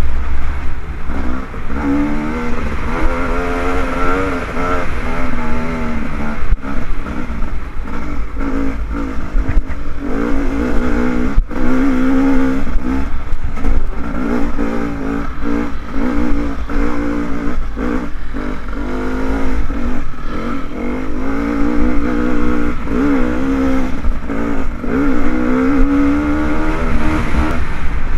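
Dirt bike engine revving up and down with the throttle as it is ridden along a rough trail, pitch climbing and dropping every few seconds. Heard through a helmet-mounted camera, with a heavy low rumble of wind on the microphone and frequent knocks and clatter from bumps.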